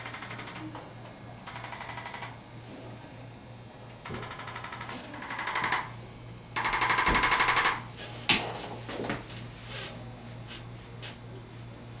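Arthrostim electric chiropractic adjusting instrument firing rapid trains of taps on the neck vertebrae. It fires in several bursts of about a second each, the loudest a little past the middle.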